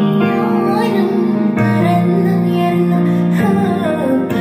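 A song with a sung melody over held instrumental notes, played back through an LG 5.1 home theatre speaker system as a listening test of its sound.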